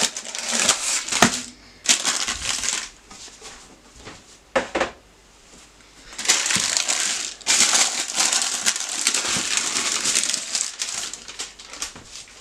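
Baking parchment crinkling and rustling as it is pulled and peeled away from a soft slab of fudge, with a few sharp knocks in the first half and a long stretch of steady crinkling in the second half.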